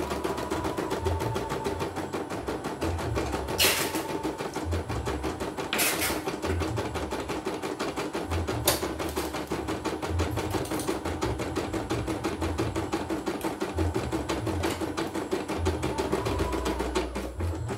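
CNY portable computerized embroidery machine stitching out a design: a fast, even needle clatter over a steady motor hum. Two brief rushing noises come about four and six seconds in.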